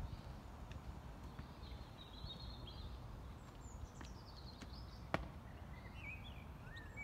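Faint birdsong: several short chirping and gliding phrases, over a low steady outdoor rumble. A single sharp knock about five seconds in.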